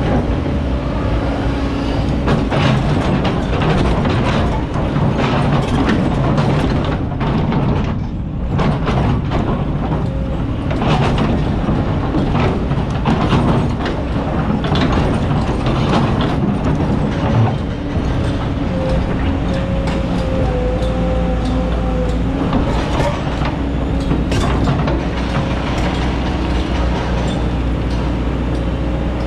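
Kobelco hydraulic excavator's diesel engine running under load while the steel bucket scrapes and digs through hard-packed black sand and stones, with many sharp clicks and clatters of rock against the bucket. A whining tone comes and goes in the second half.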